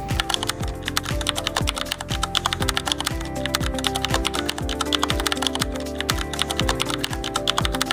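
Typing sound effect: rapid, dense key clicks over background music with a steady low beat about twice a second.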